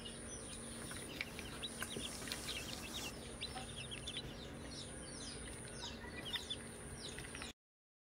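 A brood of newly hatched chicks peeping: a dense, faint stream of short, high, falling cheeps from many birds at once, cut off abruptly near the end.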